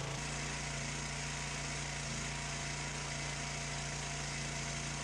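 Log splitter's small engine running steadily at idle, faint and even.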